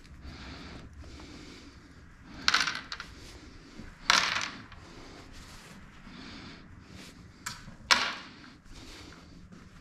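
Four sharp clatters of hard objects being handled and set down, the loudest about four seconds in and two close together near the end.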